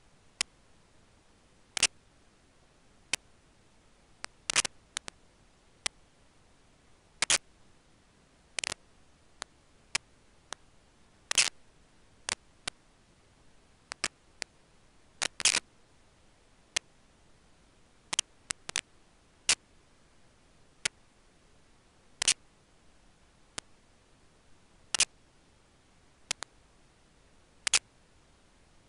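Sharp, irregular clicks, roughly one a second and sometimes two or three in quick succession, over a faint steady hiss.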